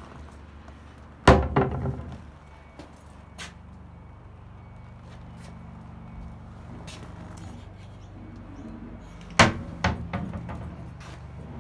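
Two loud bangs, about eight seconds apart, each followed by a few lighter knocks, over a steady low hum.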